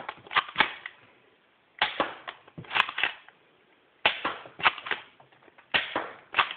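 Air Zone Quick Fire 12 foam-dart blaster being primed and fired again and again. There are five clusters of sharp plastic clacks, each stroke and shot following about every one to one and a half seconds.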